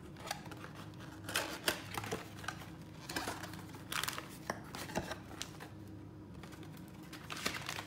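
A small cardboard box being opened and a plastic zip bag of PCR tube caps handled: crinkling and rustling with scattered light clicks and taps.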